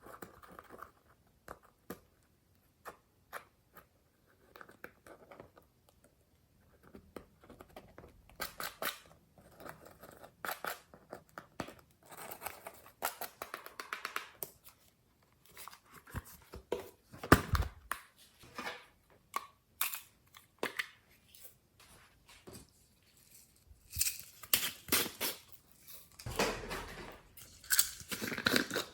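Glossy slime being squeezed, stretched and folded by hand, giving sticky clicks, pops and crackles in irregular bursts.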